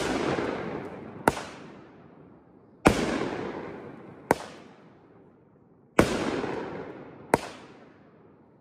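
Kripton Neon to the Bone firework cake firing shot after shot: six sharp reports evenly spaced about a second and a half apart, every other one followed by a long fading crackling tail.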